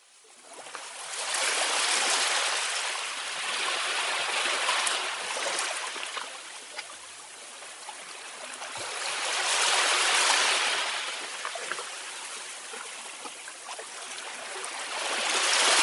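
A rushing noise, like surf washing on a shore, that swells and fades every six to eight seconds.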